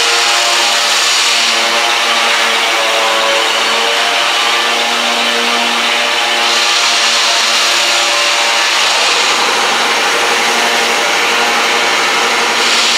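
Loud, steady running of shop machinery: a motor hum with a strong hiss over it, the hiss growing stronger about six seconds in and again near the end.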